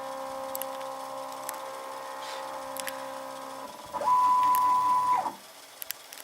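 Stepper motors of a homemade CNC router driving its axes: a steady multi-toned whine that stops a little past halfway, then a short fast move whose pitch rises into a louder single whine for about a second before cutting off. A few faint clicks.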